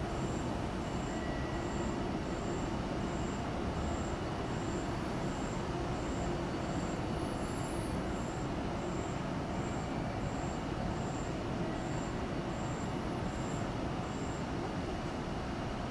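Steady low hum of a station platform with no train in, with a faint, high pulsed beep repeating about one and a half times a second that stops near the end.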